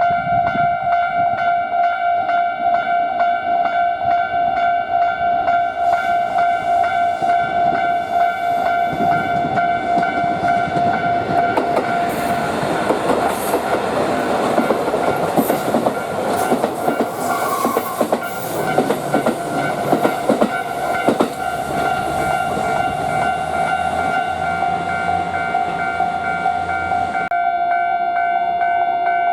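Japanese level-crossing warning bell ringing steadily while a train passes over the crossing, its wheels clacking over the rail joints. The train noise builds from about six seconds in and cuts off a couple of seconds before the end, leaving the bell alone.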